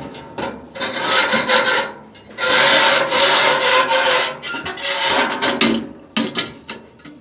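Gas furnace burner assembly being slid out of its sheet-metal housing: metal scraping and rubbing in several long strokes, the longest and loudest about two and a half seconds in, with a few sharp clicks near the end.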